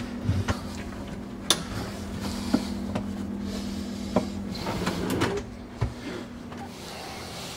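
Wooden drawers being slid onto their rails in a wooden pantry cabinet: scattered knocks and clacks of wood on wood as they are fitted, over a steady low hum that stops about five and a half seconds in.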